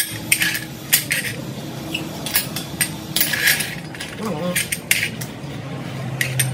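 Irregular light metallic clinks and clatter, about a dozen sharp strikes with a brief ring, from tools and aluminium plate being handled, over a steady low hum.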